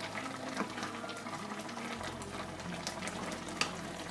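Ema datshi, a chili-and-cheese stew, bubbling in a wok, with many small pops and ticks and one sharper click near the end as a wooden spatula works through it.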